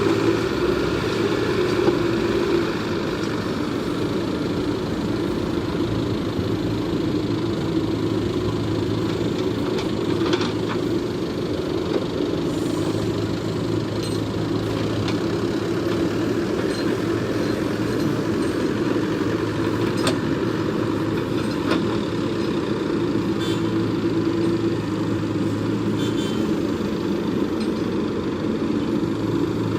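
Diesel engine of a JCB backhoe loader running steadily, with a few faint knocks scattered through.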